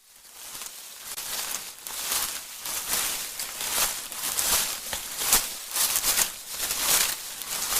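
Footsteps walking on a forest floor, each step a crackling rustle, at a steady walking pace of a little more than one step a second. The sound fades in over the first second or so.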